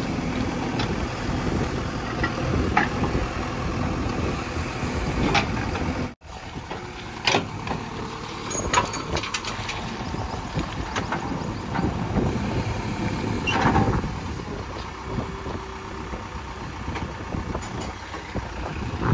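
JCB 3DX backhoe loader's diesel engine running steadily, with a few sharp metallic knocks in the second half.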